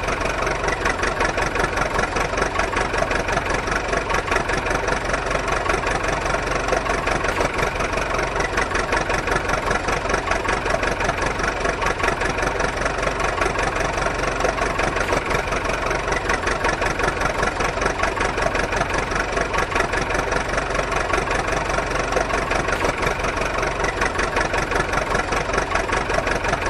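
A small engine running steadily at idle with a fast, even chugging.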